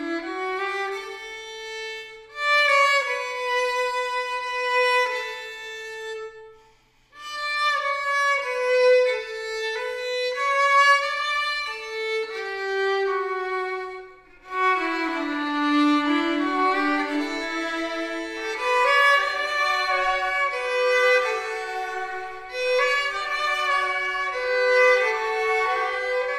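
A violin playing a melody in phrases, with two brief pauses, about 7 and 14 seconds in.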